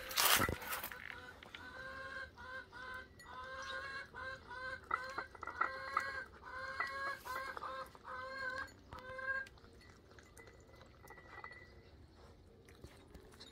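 Chicken clucking in a quick run of short calls for several seconds, then it stops. A sharp knock is heard right at the start.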